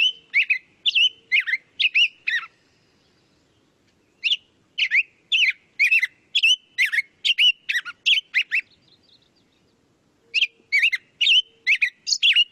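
Black-headed grosbeak singing: quick gliding whistled notes, about two a second, in three phrases separated by pauses of about two seconds.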